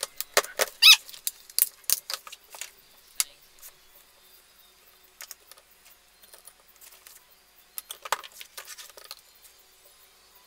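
Paper and card being handled on a craft table: crisp rustling and scattered clicks, busiest in the first three seconds and again around eight seconds in.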